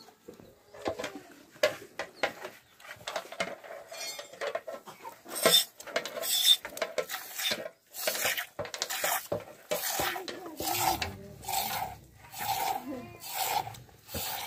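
Hand-milking a water buffalo: milk squirts from the teat into a small stainless-steel cup in regular spurts, about two a second. Each spurt rings in the metal cup.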